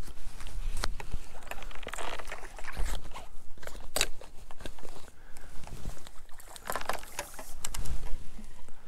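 Wind buffeting the microphone over small waves lapping at the loch's edge, with a few sharp knocks about four seconds in and again near the end.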